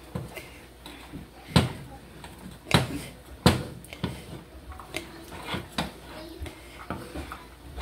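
Wooden spatula knocking against a metal saucepan while stiff wheat swallow dough is turned and pressed in it. Three sharp knocks come in the first half, followed by lighter knocks and scraping.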